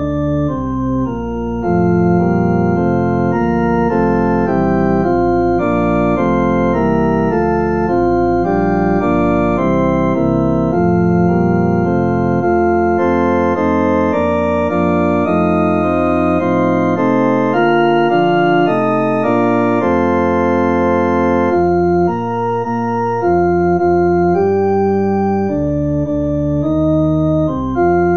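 Organ music: held chords that change every second or so, at a steady level.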